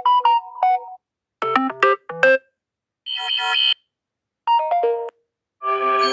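Samsung Galaxy A32 notification tones played one after another: about five short electronic chimes of a few notes each, every one under a second long, with brief silent pauses between them.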